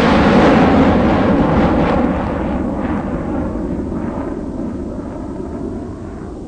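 JCB 3DX backhoe loader's diesel engine running hard as the backhoe arm swings back from the trolley and digs into loose soil, loud at first and easing off gradually over the following seconds.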